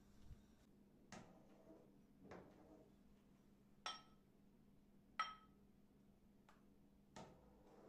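Metal ladle clinking against a ceramic soup bowl and pot as soup is served: two sharp, ringing clinks near the middle, among a few softer knocks.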